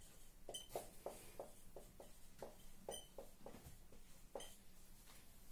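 Marker pen writing on a whiteboard: a faint run of short strokes, about three a second, as figures and brackets are written out.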